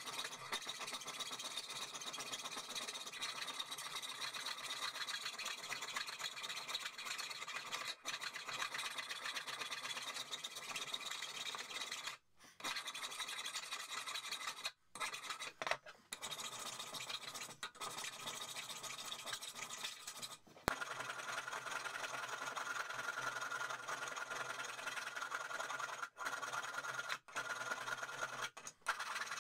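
Hand file rasping over the metal head of an old hammer held in a vise, in steady back-and-forth strokes that stop briefly a few times.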